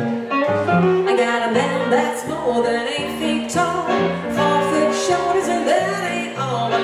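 Live blues played by a duo on hollow-body electric guitar and stage keyboard, with a woman singing from about a second in.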